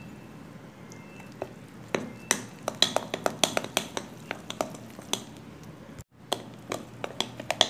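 A utensil stirring puto batter by hand in a glass mixing bowl, clicking and clinking against the glass in a quick, irregular run from about two seconds in, as flour, egg, milk and butter are worked into a thick batter.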